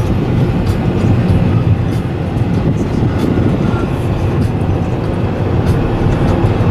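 Steady low rumble of a car driving on a paved road, heard from inside the cabin, with faint light ticks and rattles over it.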